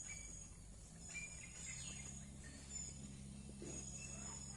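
Faint outdoor background of birds chirping and insects calling, with short high chirps repeating every second or so over a low steady hum.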